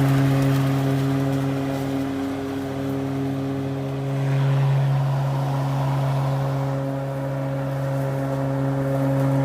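Hart 16-inch 20-volt cordless lawn mower's brushed electric motor and blade running with a steady hum while cutting grass in bagging mode. The pitch dips briefly about two seconds in, and the sound eases and swells a couple of times as the load on the blade changes.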